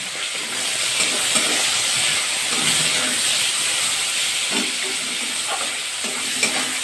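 Sliced onions and green chillies sizzling in hot mustard oil in a metal kadai, with a spatula scraping and stirring through them a few times.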